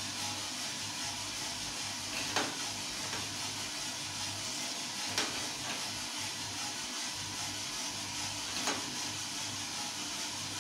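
Small drum coffee roaster running mid-roast: a steady hiss over a low, even hum. Three short sharp clicks stand out, a few seconds apart.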